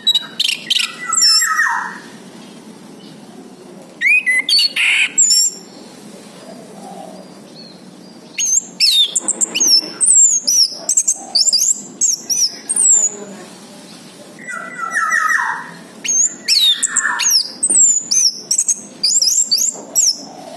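Orange-headed thrush singing in loud phrases of rapid, varied sweeping whistles and chirps, about four phrases with short pauses between them.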